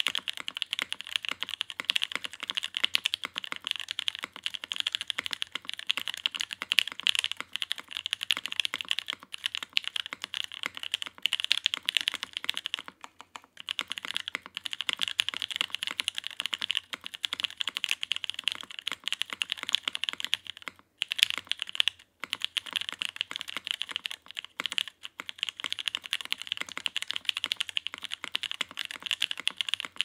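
Fast, continuous typing on a CKC Aksara 60 custom mechanical keyboard with lubed Pewter light-tactile switches, a top-mounted aluminium plate and GMK keycaps, keystrokes following one another in quick succession. The typing breaks off briefly about 13 seconds in and again around 21 to 22 seconds.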